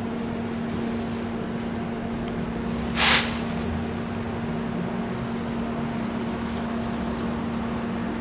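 A steady machine hum with one constant tone, and a short, sharp hiss about three seconds in.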